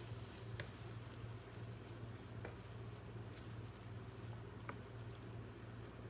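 Thick tomato and tuna sauce with diced green pepper sizzling gently in a nonstick frying pan while a wooden spatula stirs it, with three faint clicks of the spatula. A steady low hum runs underneath.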